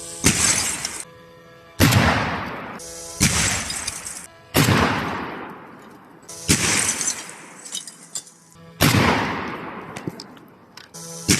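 Saiga-12 12-gauge semi-automatic shotgun fired repeatedly, a shot about every one and a half to two seconds, each with a long fading echo and the crack of the target shattering. Background music plays underneath.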